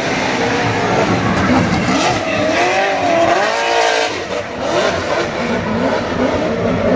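Two drift cars running a tandem drift, their engines revving up and down over the hiss of sliding tyres, with the pitch swooping most strongly a few seconds in.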